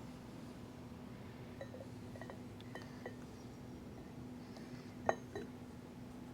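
A few light metal clinks and taps of tools and steel parts being handled on a manual milling machine's table, the sharpest about five seconds in, over a steady low hum.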